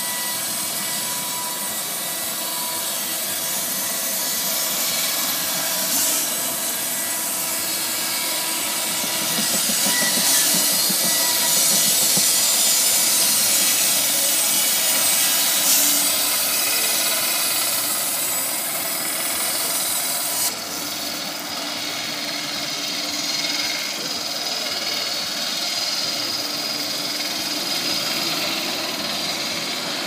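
Norwood LumberMate LM29 portable band sawmill running, its engine driving the band blade through a log with a steady hissing cut. About two-thirds of the way in the high hiss drops away abruptly while the engine runs on.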